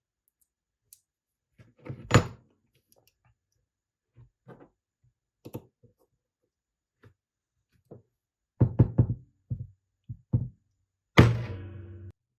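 A series of irregular knocks and thuds, some single and some in quick clusters. The last knock is the loudest and rings on for about a second.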